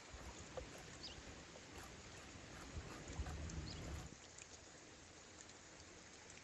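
Faint, steady flow of a shallow rocky stream, with scattered small clicks. A low rumble runs under it for the first four seconds and then drops away.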